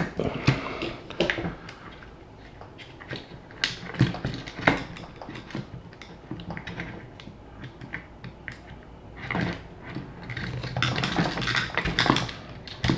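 Irregular clicks, knocks and scraping of hard plastic RC crawler parts as a tight plastic suspension link end is worked and pushed into its mount on the chassis, with a busier stretch of rubbing and rattling near the end.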